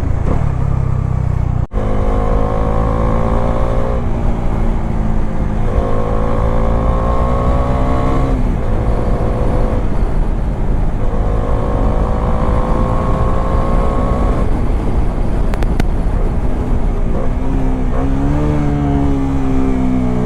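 Bajaj Dominar 400's single-cylinder engine accelerating through the gears: the engine note climbs, breaks off briefly at each upshift and starts again lower, three times, then climbs once more near the end.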